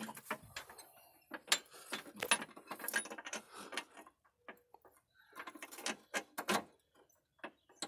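Hand ratchet clicking in short, irregular runs with metal clinks as a bolt under the car is tightened.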